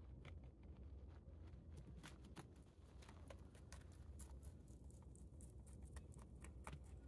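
Rabbit chewing Chinese cabbage leaves close to the microphone: a quick, irregular run of faint, crisp crunching clicks that grows denser after the first couple of seconds.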